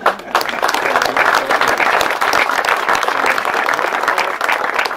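Audience applauding: many people clapping at once, starting abruptly.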